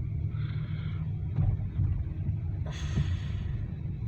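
Steady low rumble of a car running, engine and road noise heard from inside the cabin, with a brief hiss about three seconds in.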